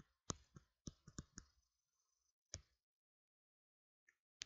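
Faint taps and clicks of a stylus on a tablet screen during handwriting. There are about five in the first second and a half, a single tap about halfway, and a sharper one near the end.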